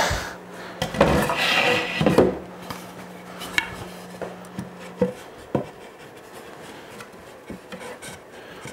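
Wooden shelf board scraping and knocking against a wooden case as it is tried for fit in a hand-cut dado: a rubbing slide about a second in, then a few light knocks.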